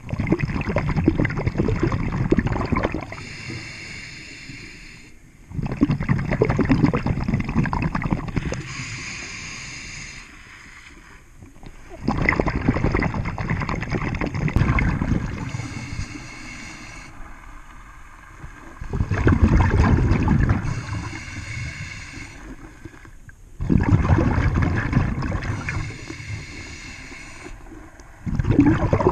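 Scuba diver breathing through a regulator: a loud gurgling rush of exhaled bubbles about every six seconds, each followed by the fainter hiss of an inhalation.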